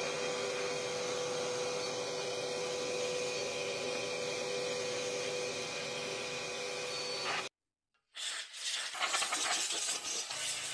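Shop vacuum running steadily with a constant hum, sucking dust out of a band saw. It cuts off suddenly about seven and a half seconds in, and an uneven scraping noise follows near the end.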